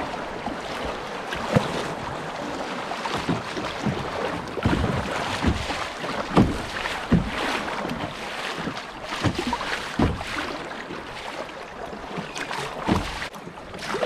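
Choppy river current rushing and splashing around a plastic kayak's bow, with wind buffeting the microphone and irregular sharp slaps of water against the hull about once a second.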